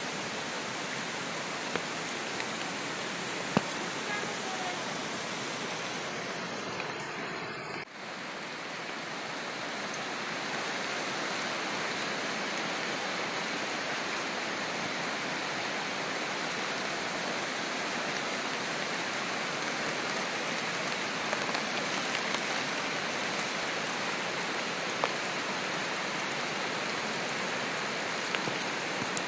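Heavy rain falling, a steady dense hiss that briefly dips about eight seconds in.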